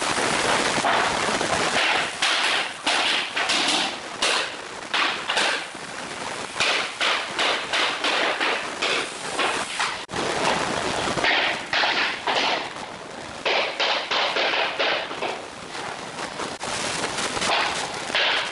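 Wooden floor planks clattering and knocking as they are handled, stacked and laid into place, a dense run of irregular sharp knocks with short pauses.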